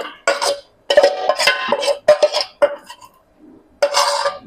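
Metal utensil clanking repeatedly against a ringing metal cooking vessel as marinated chicken is scooped into it, an irregular series of knocks with a short pause near the end.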